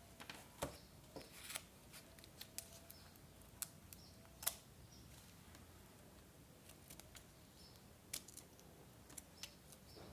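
Light, scattered clicks and taps of paper and small tools being handled in scrapbooking, some of them scissor snips, spaced irregularly over a very quiet background.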